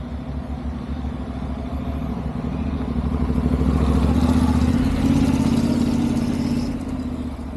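Honda NC750X motorcycle's parallel-twin engine running, getting louder for a few seconds in the middle, then easing off again.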